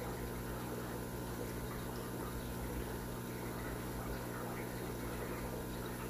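Steady aquarium ambience: water running and bubbling from filters and pumps over a low, even hum.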